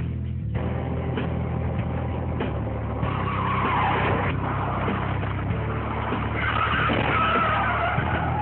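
Car tyres skidding, with wavering squeals in two stretches: from about three seconds in and again from about six seconds in, over a steady low hum.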